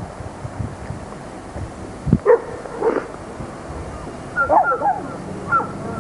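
Wind rumbling on the microphone, with a dog giving short high whines and yelps: a couple about two seconds in and a cluster near the end.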